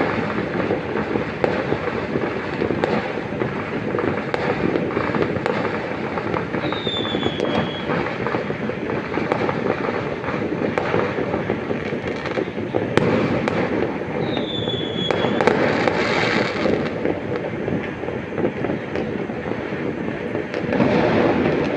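Many fireworks and firecrackers going off at once across a city, a dense, unbroken crackle of bangs and pops. Two short falling whistles come through, about seven and fifteen seconds in.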